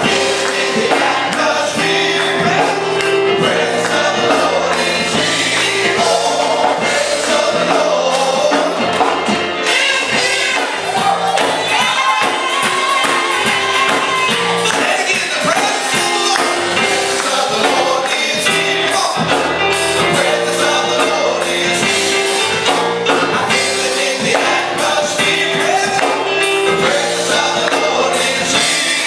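Gospel music: a choir singing over a band, with tambourine and steady percussion.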